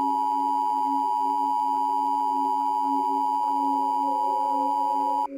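Emergency Alert System attention signal: a loud, steady, shrill electronic tone held for about five seconds, cutting off abruptly near the end. A low steady hum runs underneath it.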